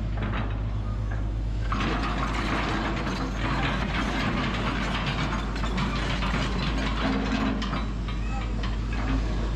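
Crawler excavator working close by: its diesel engine and hydraulics run with a steady low drone, under dense metallic clanking and rattling that grows busier about two seconds in.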